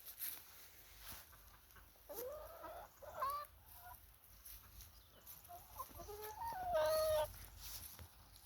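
Backyard hens calling: three drawn-out, pitch-gliding calls, the last and longest about six seconds in.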